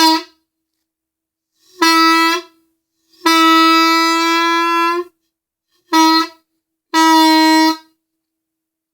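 A homemade PVC replica of a Leslie 330 train-horn bell, fitted with two new diaphragms, sounding a steady single-note tone in five blasts: short, medium, one long one of about two seconds, short, medium. It is a test of the pitch the new diaphragms give.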